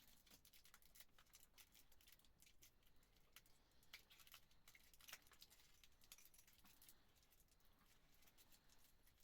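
Near silence with faint, irregular small clicks scattered throughout.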